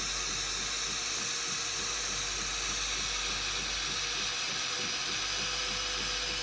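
Jura Z10 coffee machine frothing milk for a latte macchiato: a steady hiss with a fast, even pulsing from the pump underneath and a constant hum.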